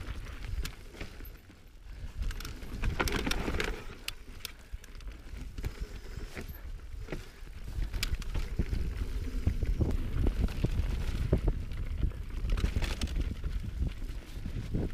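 Mountain bike being ridden on a dirt singletrack trail, its tyres rolling over dirt and rock and the bike giving frequent sharp knocks and rattles. Wind rumbles on the camera microphone throughout, louder in the second half.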